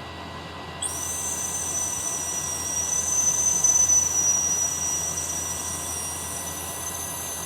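Dog whistle blown in one long breath: a thin, steady high-pitched tone with an airy hiss over it, starting about a second in and rising slightly in pitch near the end.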